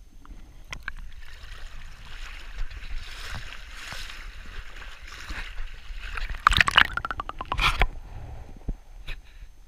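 Water splashing and gurgling around a GoPro being moved through a shallow stream, breaking the surface, with two louder bursts of crackling splashes in the second half.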